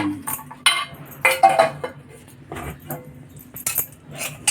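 A spoon clinking and scraping against a metal pot in several separate short clinks as a little jaggery is added to the strained herbal decoction.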